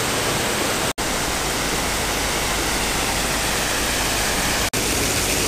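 Ornamental plaza fountains: water jets and a spout splashing into shallow pools, making a steady, loud rush of water. It breaks off for an instant twice.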